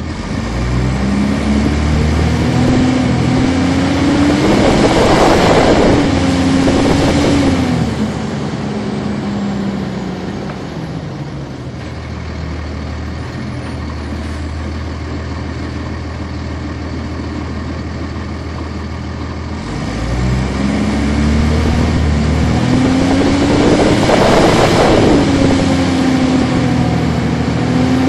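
A 1999 NovaBus RTS transit bus's Cummins ISC diesel, heard from inside the cabin, accelerating twice. Each time the engine note climbs and a loud rush of noise swells at the height of the pull before the note falls back. In between, the engine runs quieter and steadier.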